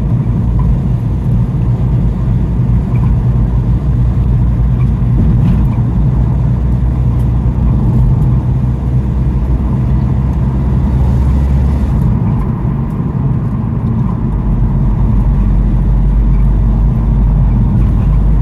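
Van being driven: a steady low drone of engine and road noise heard from inside the cabin. The deepest part of the drone shifts about twelve seconds in.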